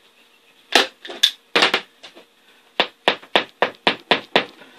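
A hand staple gun fires a few sharp shots into vinyl over a seat, then a hammer taps quickly, about nine light taps at some five a second, driving the staples down.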